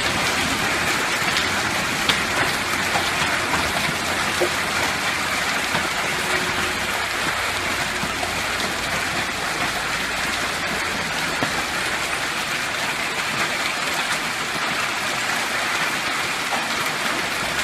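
Hailstones of quarter- to half-dollar size and heavy rain pelting the ground and nearby surfaces in a dense, steady clatter, with an occasional sharper stone strike standing out, the clearest about two seconds in.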